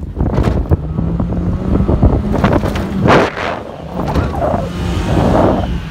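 Toyota Hilux pickup engine running under load while driving over soft sand dunes, with wind buffeting the microphone in several loud gusts.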